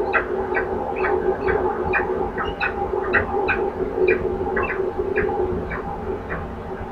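Short, sharp bird calls repeated about two to three times a second over a steady hum.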